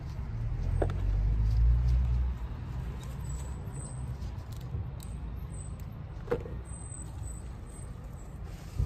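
A motor vehicle passing on the road: a low engine rumble, loudest in the first two seconds or so, then settling to a steady low hum of traffic. A couple of faint clicks come through as well.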